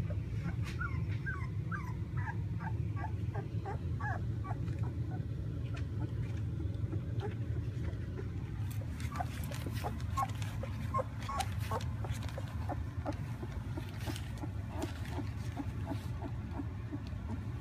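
Puppies whimpering in rapid strings of short, high squeaky yips, in two bouts. A steady low rumble runs underneath.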